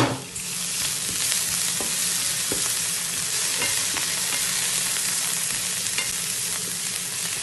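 Sliced carrot, leek and onion sautéing in a non-stick frying pan, sizzling steadily while stirred with a wooden spatula, with faint scrapes and ticks. A short knock comes at the very start, and the sizzle rises just after it.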